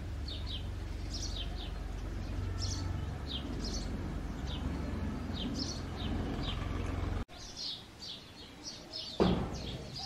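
Male house sparrow chirping: a steady run of short, high chirps a few per second, the breeding-season calling of a male. A low rumble beneath cuts off suddenly about seven seconds in, and a brief, louder, lower sound stands out near the end.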